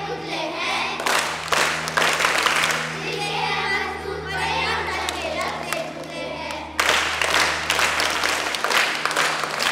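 A group of children singing a song together over a backing music track. Clapping comes in from about seven seconds in.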